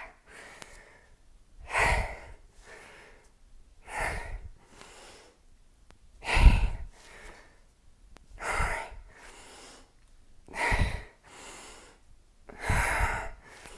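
A woman's heavy breathing through a set of deadlift reps: six forceful out-breaths about two seconds apart, each followed by a quieter in-breath.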